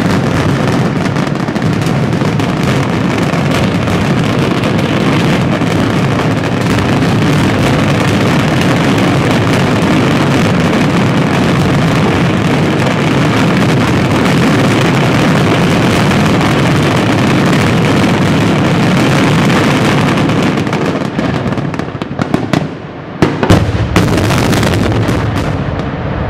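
Fireworks finale: a dense, unbroken barrage of aerial shell bursts and crackle. It breaks up about 22 seconds in into a few separate loud bangs.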